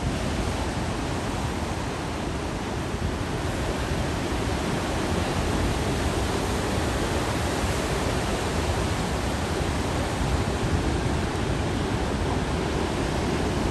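Ocean surf breaking, a steady even rush of noise with no single crash standing out.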